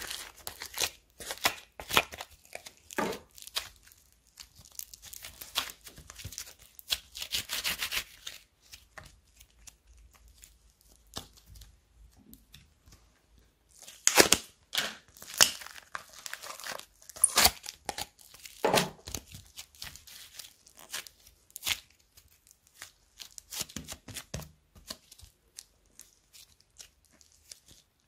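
Soft, fluffy slime being stretched, squeezed and pulled apart by hand, giving sticky tearing crackles and little pops. These come in busy spells with quieter gaps between.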